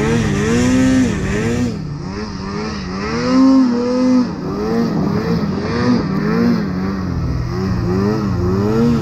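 A two-stroke mountain snowmobile engine revving up and down in repeated throttle blips, about once a second, while riding through deep powder.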